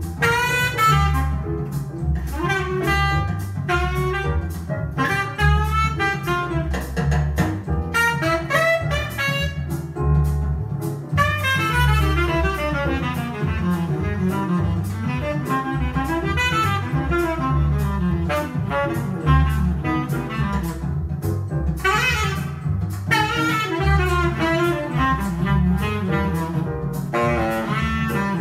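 Jazz with a saxophone lead over a double bass line, played from a vinyl record on a Micro Seiki RX-5000 turntable and heard through loudspeakers in the room.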